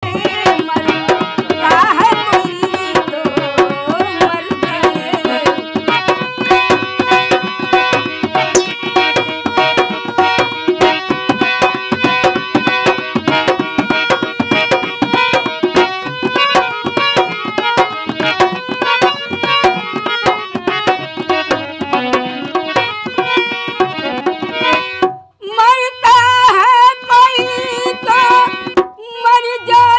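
Dholak drumming under steady held keyboard notes, accompanying an Indian village folk song. About 25 seconds in, the backing thins and an old woman's singing voice comes to the front with lighter drum strokes.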